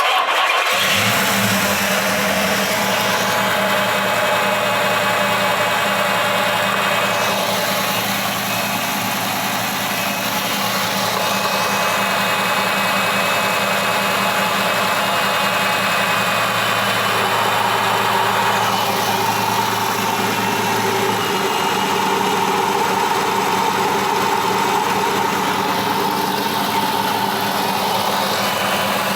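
Car engine idling steadily, heard up close at the accessory belt drive while the belt tensioner is checked for wear. A steady low hum runs under a brighter whirring whose tone shifts several times.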